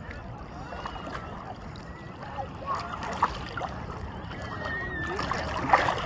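Sea water sloshing and lapping around a camera held right at the surface, with a few small splashes, the strongest near the end.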